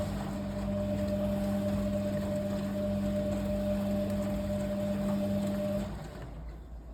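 Kunft washing machine running in its final rinse, a steady mechanical hum that falls away about six seconds in.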